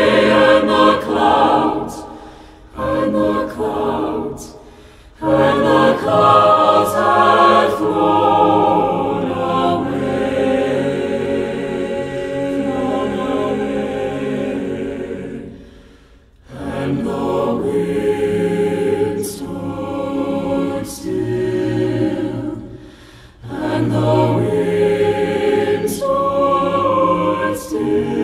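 Mixed SATB choir singing a cappella in sustained, close chordal harmony, with brief breaks between phrases.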